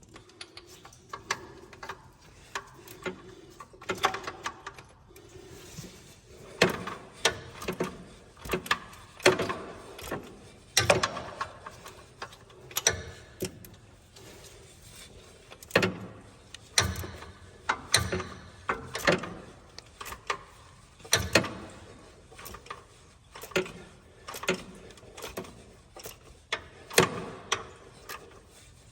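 Ratchet and metal tool clicking and knocking in short, irregular strokes, from tightening an engine block heater into the freeze-plug hole of a Ford 3.5L engine block.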